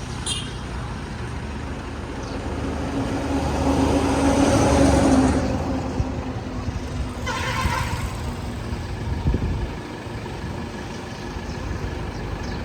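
Tractor engine running under load, growing louder about three to five seconds in and then easing off, with a short hiss about seven seconds in.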